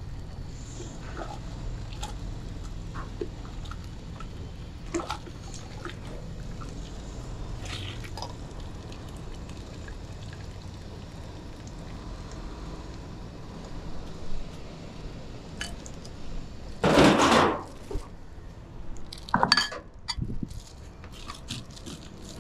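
Bowls and utensils clinking while a bowl of noodle soup is made up, with one brief, loud pour of broth about three-quarters of the way through and a few sharper clinks just after, over a low background hum.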